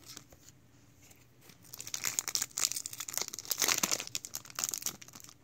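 Pokémon trading card booster pack's foil wrapper being crinkled and torn open by hand. It starts about a second and a half in and goes on as a dense crackle until just before the end.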